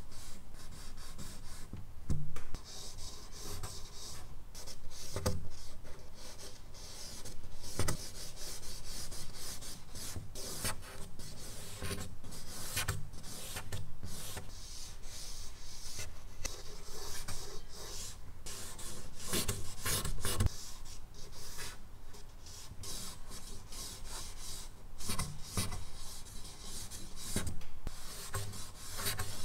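Stick charcoal scratching and rubbing across medium-surface drawing paper in quick, irregular strokes, a few of them louder than the rest.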